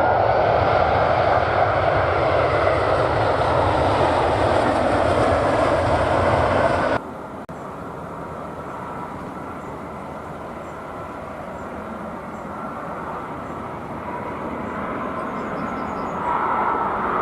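Airliner jet engines running loud, from a Swiss Airbus A340-300 that has just landed, cutting off abruptly about seven seconds in. Then quieter, more distant jet engine noise from an approaching Airbus A330-300, slowly growing louder and stepping up near the end.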